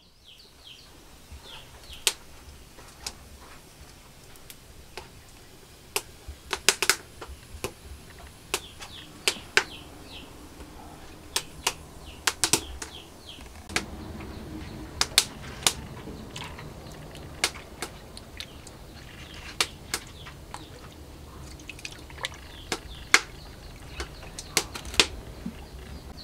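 Outdoor ambience: small birds chirping briefly now and then, with irregular sharp clicks and taps scattered throughout over a low steady hum.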